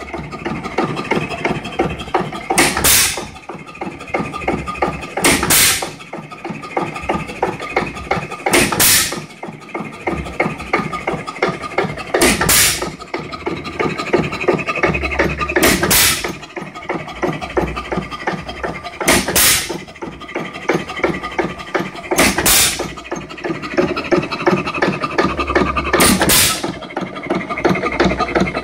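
3 1/2 hp Jaeger hit-and-miss engine running: a sharp firing bang about every three to three and a half seconds, eight times, with a rapid mechanical clatter from the valve gear and flywheels while it coasts between shots. The long coasts between single firings are the governor holding the exhaust valve open, the sign of the engine running with little or no load.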